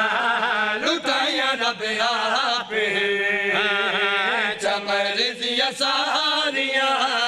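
A man chanting a devotional Punjabi qaseeda, holding long, wavering, ornamented notes.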